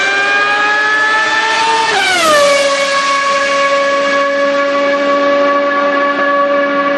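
Racing car engine sound effect: the engine note climbs slowly, drops sharply about two seconds in, then holds a steady high-pitched whine.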